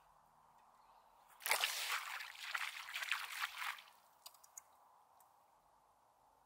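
A fishing lure landing in the river with a splash about a second and a half in, followed by a couple of seconds of water noise, then a few faint ticks.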